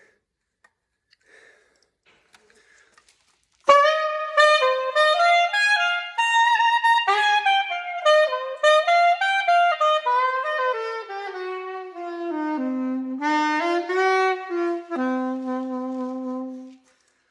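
Curved soprano saxophone with a Van Doren V16 mouthpiece playing a melodic phrase, heard with the natural echo of an old cattle barn. It comes in about four seconds in after near silence and closes on a long held low note.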